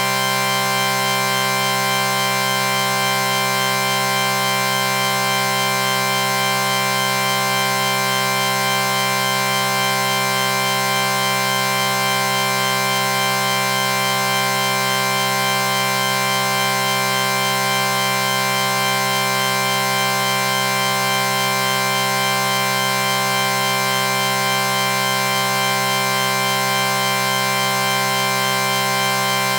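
A sustained chord sound effect: many steady tones sounding together, held at an even loudness without any change.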